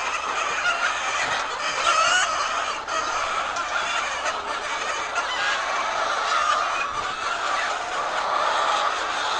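A flock of laying hens clucking, many overlapping calls blending into a steady din.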